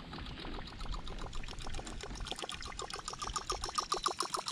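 Handmade musky topwater tail bait retrieved across the surface: its spinning tail blade churns and splashes the water in a rapid, even run of clicks, about ten a second. It grows louder past the halfway point as the bait comes closer.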